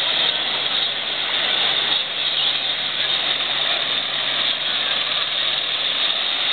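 Surf washing in shallow water and wind on the microphone, a steady even rush with a faint constant low hum underneath.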